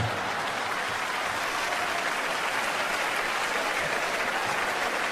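Large theatre audience applauding steadily, with laughter mixed in, in response to a comedian's punchline.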